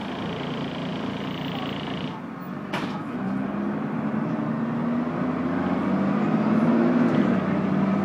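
Bus engine heard from inside the bus, running steadily, then rising in pitch and getting louder as the bus accelerates, with a slight dip partway through. A single short knock sounds about three seconds in.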